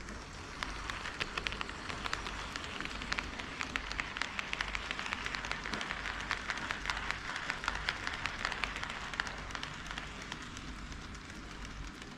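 HO-scale KATO D51 steam locomotive model and its train running past on KATO Unitrack, wheels clicking rapidly over the rail joints over a steady running hiss. The clatter builds through the middle as the train comes closest, then fades toward the end.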